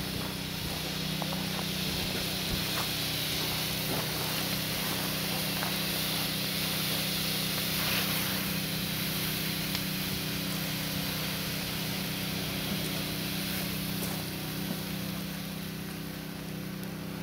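Water from a fire hose hissing as it is sprayed onto a burning car, over a steady engine drone, with scattered small crackles from the fire. The hiss eases a little near the end.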